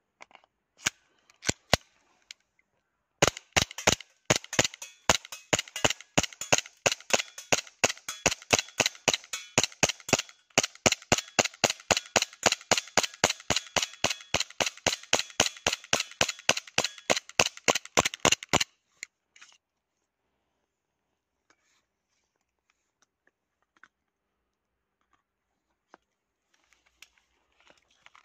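Umarex Glock 17 gas-blowback airsoft pistol firing: three shots, then a rapid, even string of shots at about four a second that stops abruptly about two-thirds of the way through, followed by a few faint clicks.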